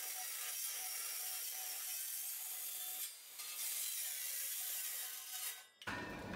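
Compact Makita circular saw cutting through an aluminium beam: a steady, hissy sawing with a brief dip a little after three seconds, ending abruptly near the end as the blade comes out of the cut.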